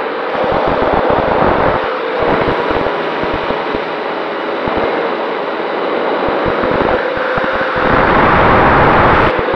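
Brushless motors and propellers of a modded MJX Bugs 3 quadcopter running under heavy wind buffeting, heard from the camera on the drone during a rapid spiral descent. The rush swells louder about a second in and again near the end.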